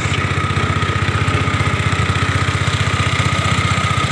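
Small wooden boat's motor running steadily under way: a fast, even putter with a thin steady whine above it.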